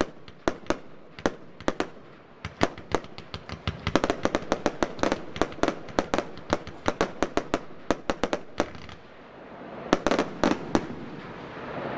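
Consumer fireworks compound battery firing: a rapid string of sharp shots and star bursts. The shots come thick and fast from about four seconds in, pause briefly, then a cluster of louder bangs lands near the end.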